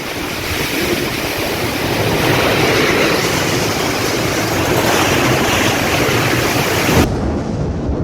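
Strong wind blowing hard in gusts, buffeting the microphone with a heavy rumble under a loud rushing hiss. Near the end the hiss cuts off suddenly, leaving the lower rumble.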